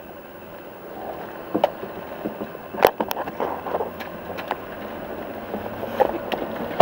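Steady rumble inside a moving vehicle, with several sharp clicks and knocks of gear and equipment, the loudest about three seconds in.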